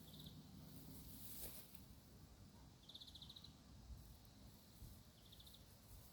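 Faint outdoor background with three short, high trilled chirps from a small animal: one at the very start, one about three seconds in and one near the end.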